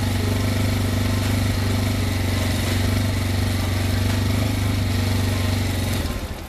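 AKT 250 TT AdvenTour motorcycle engine idling steadily at a standstill, then shut off about six seconds in, the engine note dying away.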